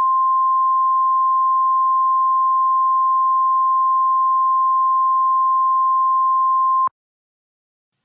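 A single steady 1050 Hz weather-radio warning alert tone, a loud pure beep held for several seconds that cuts off abruptly about seven seconds in. It is the attention signal that comes before a warning message is read.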